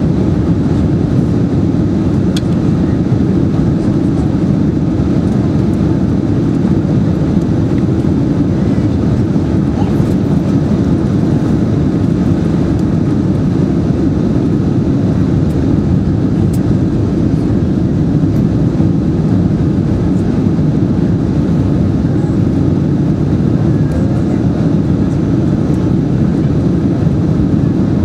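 Steady low cabin noise inside a Boeing 767-300ER airliner on descent: engine and airflow noise heard from a window seat over the wing, unchanging throughout.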